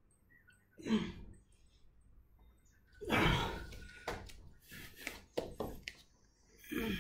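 A man's heavy exhales between sets of push-ups, about a second in and again at the end, with a few knocks and rustles of his hands and knees shifting on a wooden floor in between.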